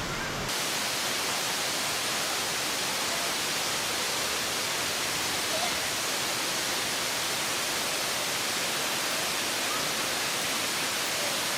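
Steady rushing of a waterfall in full monsoon flow, water cascading over rock as a dense hiss. It comes in abruptly about half a second in. Faint voices of people are heard under it.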